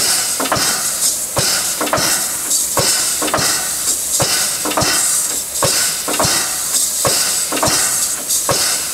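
Standing steam locomotive, the DR class 65.10 tank engine 65 1049, hissing steam around its front end, with a regular beat about twice a second from its air pump working.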